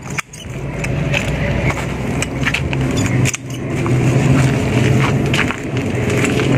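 A motor vehicle engine running steadily nearby, its low hum swelling about half a second in and again a few seconds later. A few short sharp clicks sound over it.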